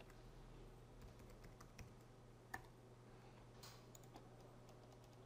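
Faint computer keyboard keystrokes and clicks, a few scattered taps over a steady low hum.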